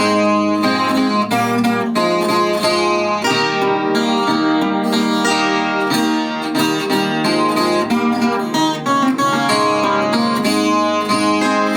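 Chilean guitarrón, a 25-string guitar, played solo as an instrumental interlude between sung verses: a continuous run of plucked notes with many strings ringing together.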